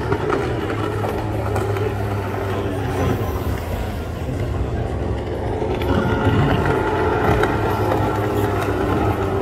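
Two-stroke 15 hp outboard engines of GT-15 racing boats running flat out as the boats race across the lake. The steady buzz gets louder about six seconds in as another boat passes close.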